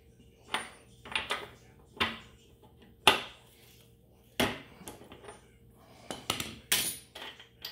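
A steel socket and breaker bar clanking against a motorcycle's rear axle nut as the nut is broken loose: several sharp, separate metallic clanks, the loudest about three seconds in.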